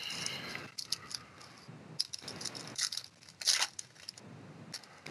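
Foil wrapper of a Panini Contenders football card pack crinkling and trading cards rustling as they are handled, in short irregular bursts, with the loudest crinkle about three and a half seconds in.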